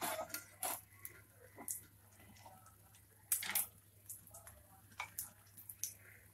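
Egg omelette frying in oil on a flat griddle (tawa): scattered, irregular pops and crackles of spattering oil, with a louder burst of them about three and a half seconds in.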